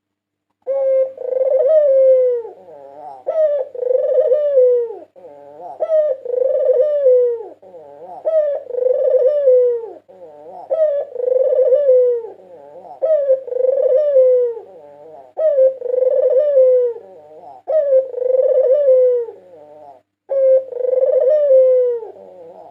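White puter dove (domestic ringneck dove) cooing, about nine coo phrases in a row, roughly one every two and a half seconds. Each phrase is a short note followed by a longer note that falls in pitch at its end.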